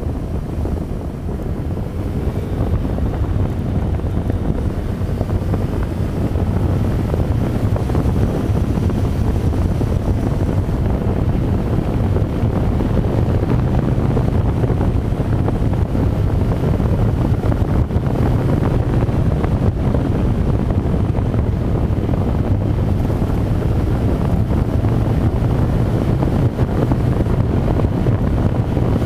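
Wind rushing over the microphone of a camera on a motorcycle moving at road speed, with the motorcycle's engine running steadily beneath it.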